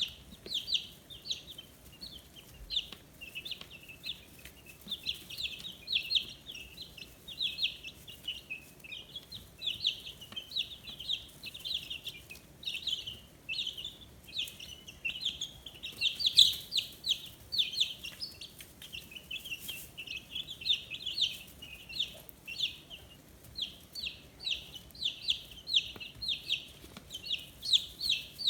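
A brood of 15-day-old chicks peeping, a dense stream of short, high chirps, several a second, overlapping one another.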